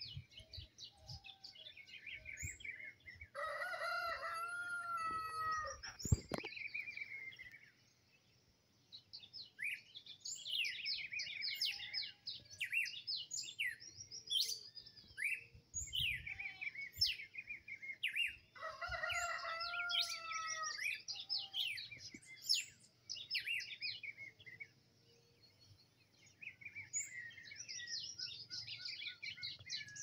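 Songbirds chirping and twittering in a busy dawn-or-dusk chorus, with a rooster crowing twice, about four seconds in and again around nineteen seconds in.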